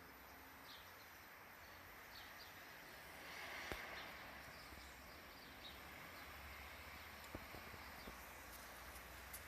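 Faint outdoor ambience with scattered, faint high chirps of small birds and a few sharp clicks, the loudest about a third of the way in.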